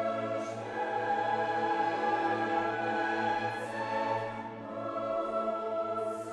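Background choral music with orchestral accompaniment: a choir sings long, sustained chords.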